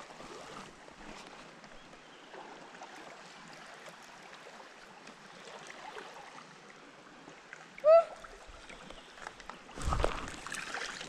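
Faint creek water running, with a splash in the water about ten seconds in. Just before the splash there is one short, high call.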